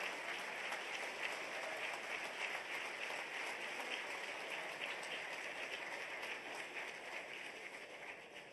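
Steady applause from a crowd, dying away near the end.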